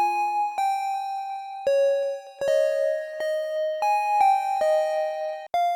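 Serum software synthesizer playing one of the producer's own presets: a lead-style melody of single notes, each starting sharply and changing pitch every half second to a second, for about nine notes in all.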